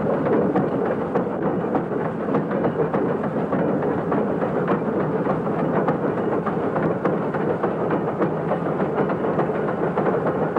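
Steam rack locomotive working along the rack line at low speed, a steady, dense clatter of running gear and exhaust with many short clanks.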